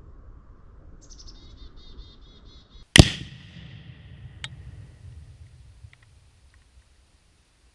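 One pound of Tannerite exploding: a single sharp blast about three seconds in, followed by a low rumbling tail that fades over a couple of seconds, with a fainter crack about a second and a half after the blast.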